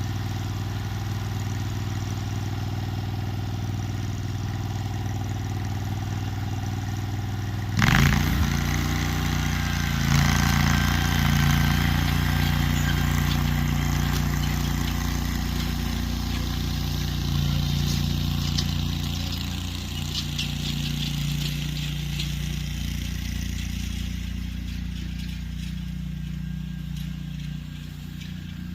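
Riding lawn mower engine running steadily under load as it pulls a disc and chain drag. About eight seconds in a sudden jolt breaks in and the engine note changes and grows louder, with light rattling over the middle part, then eases off toward the end.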